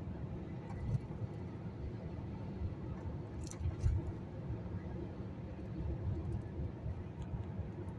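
Steady low road and engine rumble inside a moving car's cabin, with a few faint clicks about three and a half seconds in.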